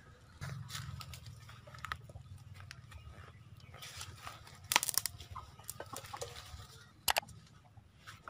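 Chickens clucking low and steadily, with sharp crackles of dry leaves and twigs, loudest about five seconds in and again near the end.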